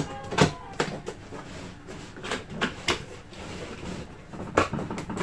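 Cardboard box being opened by hand: a scatter of sharp clicks, taps and scuffs as the lid flaps are pulled open.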